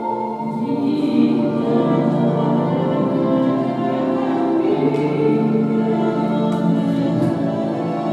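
Slow music of sustained, choir-like chords, each note held for a second or more before the harmony shifts.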